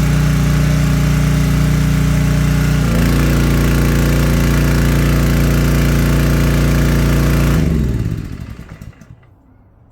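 Harbor Freight gas pressure washer's small gasoline engine running steadily, its note shifting slightly about three seconds in, then shut off near the end and spinning down to a stop.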